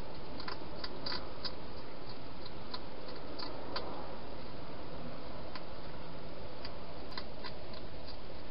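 Wild hedgehog eating at a feeding bowl inside a plastic feeding box: irregular crisp crunching clicks from its chewing, over a steady hiss. The clicks come in small clusters, with a few more near the end.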